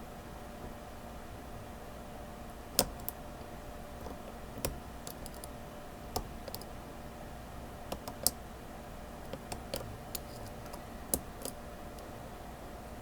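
Irregular sharp small clicks of a lock pick working the pin stack of a Master Lock 911 padlock under light tension, over a faint steady hum.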